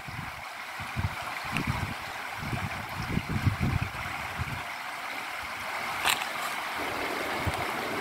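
Shallow mountain river rushing steadily over a stony bed, with intermittent low buffeting on the microphone and one short click about six seconds in.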